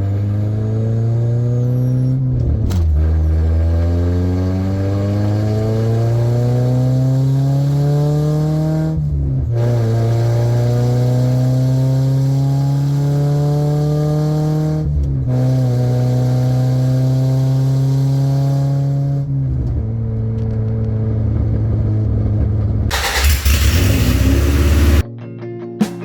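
Honda car accelerating hard through the gears. The engine note climbs steadily in each gear, with three quick upshifts, then the engine eases off near the end of the pull and a loud rushing noise follows. Guitar music starts just before the end.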